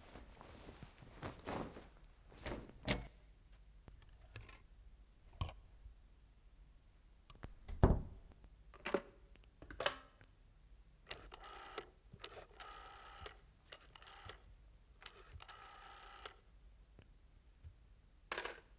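Desk telephone bell ringing three times, each ring about a second long. Before the ringing come scattered knocks and thumps, the loudest about eight seconds in, and a short clunk near the end as the receiver is picked up.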